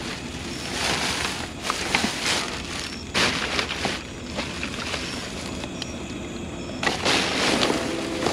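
Plastic trash bags rustling and crinkling in repeated bursts as a gloved hand digs through a dumpster full of bagged trash, with a few sharp clicks among them.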